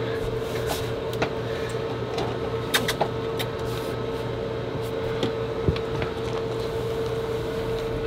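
A steady machine hum held on one pitch, with a few light clicks and knocks scattered through it as hands shift and press on a surface.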